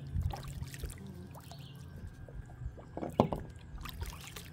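Kayak paddling: water trickling off the paddle, with light knocks of the paddle against the kayak and one sharp knock about three seconds in, over a low steady hum.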